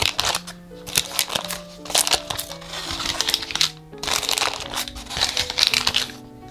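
Parchment baking paper crinkling in repeated spells as it is peeled back from the sides of a baked cheesecake, over light background music.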